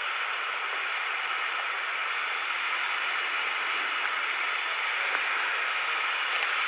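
Steady, even hiss of background noise with no pitch or distinct events, growing slightly louder.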